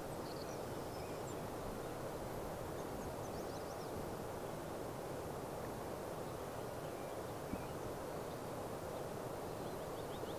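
Steady outdoor rushing noise, like wind or a flowing creek, with faint bird calls over it: a short trill about three seconds in and a rapid trill of quick notes near the end.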